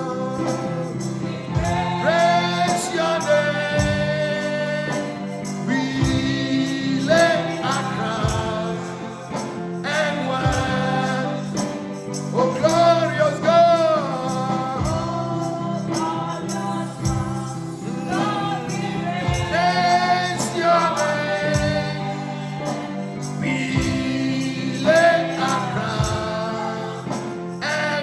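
Gospel worship music: singing over a band's steady held chords, with a low beat about every two seconds.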